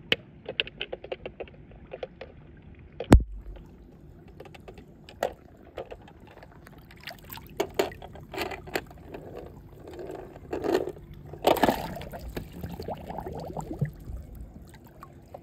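A plastic toy car is handled and set down with small clicks and one sharp knock about three seconds in. Water then swishes and splashes in the second half, loudest about eleven seconds in, as the toy car is pushed into a small pool.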